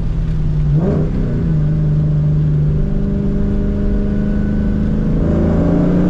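2004 Ford Mustang GT's 4.6-litre V8 running through an off-road X-pipe and Borla S-Type mufflers, heard from inside the car while driving. The revs briefly rise and drop about a second in, then climb steadily as the car accelerates.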